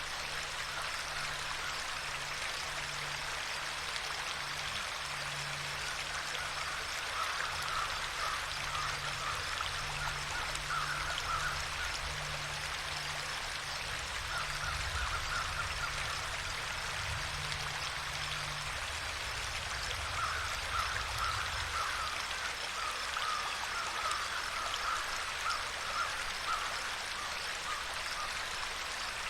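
Stream of water running steadily, with bursts of rapid chirping calls on and off. A low pulsing hum fades out about two-thirds of the way through.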